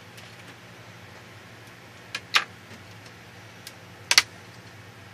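Sharp clicks as a flathead screwdriver pries the outer frame (bezel) off a Clevo P150SM laptop's LCD lid and its clips snap loose: a loud click about two and a half seconds in and a quick double click near the end, with a few fainter ticks between.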